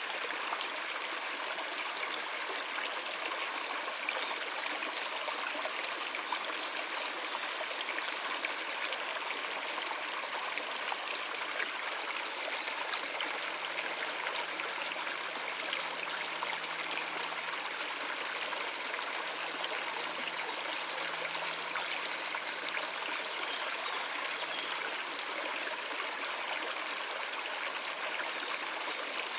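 Stream water running over rocks: a steady, even rushing and trickling.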